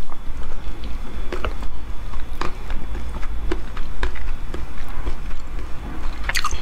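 Wet mouth sounds of eating a soft, stretchy gel dessert off a wooden spoon: scattered short lip smacks and clicks, with a quick cluster of them near the end, over a low steady hum.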